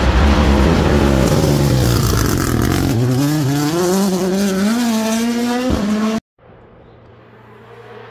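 Rally car at race pace: the engine's pitch drops as it brakes into a hairpin, then climbs hard in several steps as it accelerates out through the gears. The sound cuts off abruptly about six seconds in, leaving a faint steady background.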